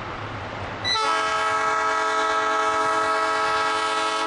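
A train's air horn sounds one long steady blast of a few seconds, a chord of several notes, starting about a second in and cutting off sharply at the end. Before the blast the train's running rumble is heard.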